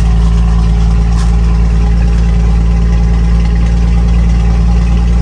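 Scania 124's straight-piped 12-litre inline-six diesel running at a steady cruise, heard from inside the cab as a loud, even low drone.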